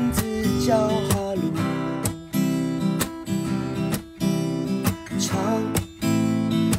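Background music: an acoustic guitar strumming chords, with short breaks about once a second.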